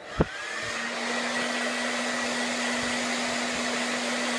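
A small electric appliance motor clicks on and spins up, its pitch rising for about half a second, then runs steadily with a high whine and a low hum over a dense rushing noise.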